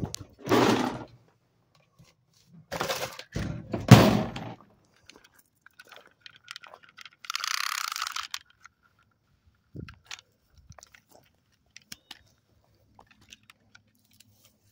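Rustling and knocking handling noise: three crunchy bursts in the first five seconds, the loudest about four seconds in, a hissing rustle about seven seconds in, then scattered light clicks.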